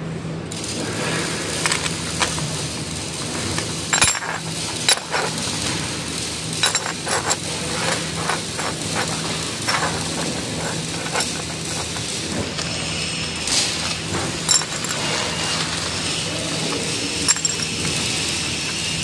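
Small square steel plates clinking and scraping as they are laid out by hand on a steel workbench: scattered sharp metal clinks over a steady low hum.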